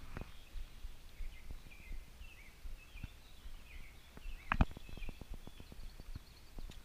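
Small birds chirping faintly in short high calls. About four and a half seconds in there is a sharp knock, then a run of quick light ticks lasting about two seconds.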